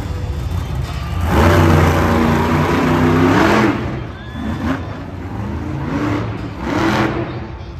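Monster truck engine revving hard: one long rev about a second and a half in that drops off after about two seconds, then a few shorter blips of the throttle.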